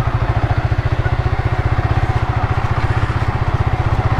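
Motorcycle engine running steadily at low revs, with an even, rapid pulse.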